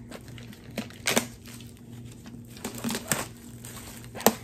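Wrapping crackling and snapping in short sharp bursts as a hardcover book is unwrapped and handled, the loudest snap coming just before the end, over a faint steady low hum.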